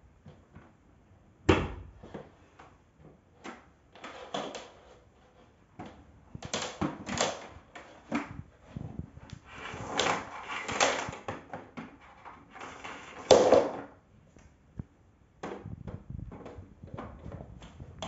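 Plastic knocks and clatter from a bagless canister vacuum cleaner being put away with its motor off: the wand and hose bump against the body and the floor. There is a sharp thump about a second and a half in, longer stretches of rattling in the middle, and another loud knock near the end of that stretch.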